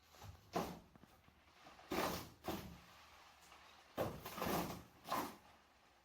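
A series of short knocks and scrapes, about six in all, each lasting a fraction of a second, with the longest stretch a little after the middle.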